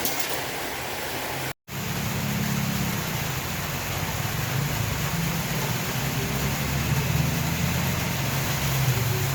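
Steady hiss, broken by a sudden brief dropout about one and a half seconds in, then a low steady engine hum.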